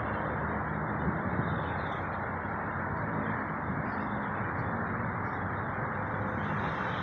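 Steady rumble of a passing airliner's engines.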